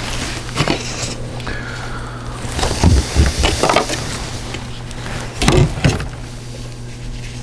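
Close handling noise: irregular knocks and rustling as objects are handled near the microphone, over a steady low hum.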